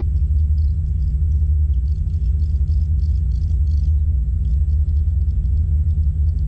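Steady low rumble of a distant diesel locomotive approaching along the line, with faint high bird chirps above it.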